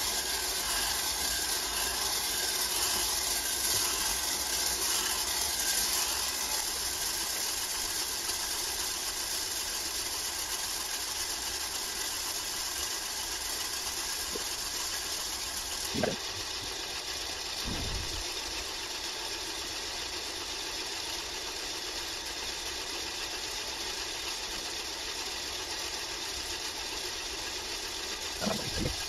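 Cafemasy electric home coffee roaster running steadily, its motor turning the stirring arm as coffee beans swish and rattle around the heated pan. There is a short knock about halfway through and a few more near the end.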